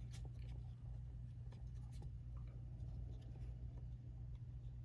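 Faint scratching and light clicks of hockey trading cards being slid against one another as the next card is revealed, over a low steady hum.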